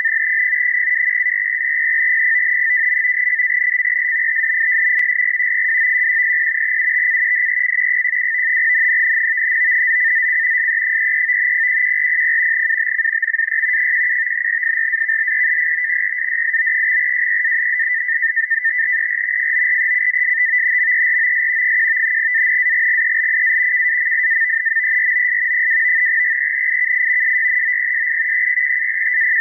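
NAVTEX marine telex broadcast on 4209.5 kHz heard through a shortwave receiver: a steady, fast two-tone warble around 2 kHz, the frequency-shift-keyed data signal that carries navigational and weather warnings.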